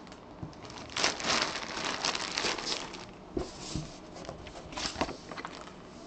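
Clear plastic bag crinkling in irregular bursts as hands fold and handle a bagged jersey.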